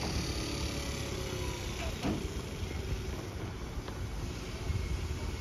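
Road traffic crossing at a railway level crossing: a car and a moped drive past close by, with a steady low rumble of engines and tyres.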